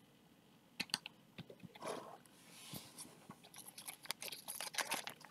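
Quiet handling of trading cards and a foil card-pack wrapper: scattered light clicks and crinkling rustles, growing denser over the last couple of seconds.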